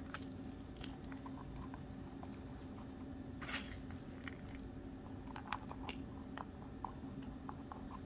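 Faint crackling and light clicks of bark chips and potting mix being picked up and pressed into a small plastic pot by hand, with one slightly louder crackle about halfway through. A faint steady low hum runs underneath.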